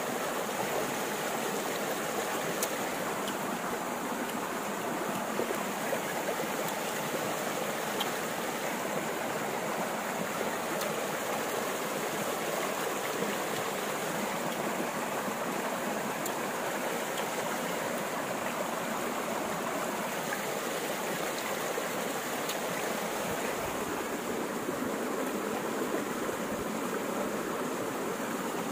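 A stream flowing steadily over a rocky bed, an even, unbroken water noise.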